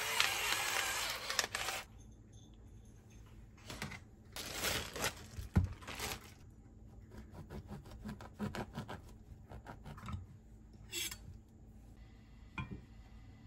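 Russell Hobbs electric salt grinder running for about two seconds, grinding salt over sliced cucumbers, then stopping abruptly. After that come scattered light clicks and knocks of kitchen handling.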